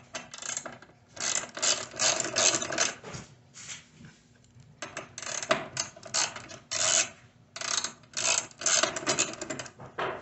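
Hand ratchet with a hex bit clicking in short rapid bursts as it turns the adjustment bolts at the back of a miter saw's fence, with brief pauses between strokes.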